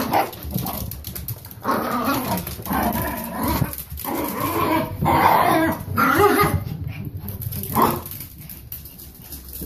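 Dogs growling and barking as they play-fight, in several bursts of one to two seconds.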